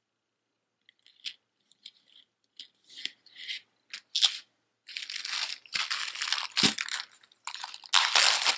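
Scattered small clicks and taps, then a plastic bag crinkling and rustling steadily as it is handled and opened.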